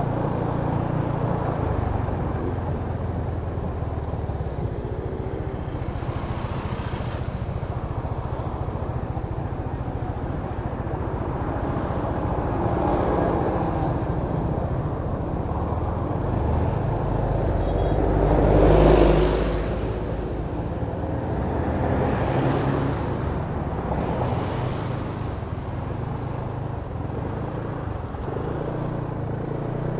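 Kymco Downtown 350i scooter's single-cylinder engine running under way, its low drone shifting in pitch as the ride goes on. Traffic noise swells and fades several times, loudest about two-thirds of the way through.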